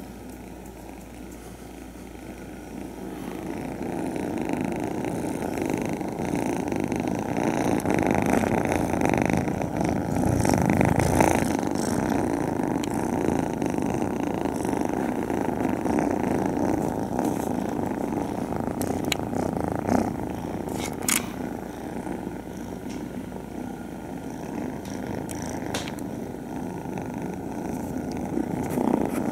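Kittens purring close to the microphone, a steady rough rumble that grows louder about four seconds in as the microphone comes in among them. A few short sharp clicks sound near twenty seconds in.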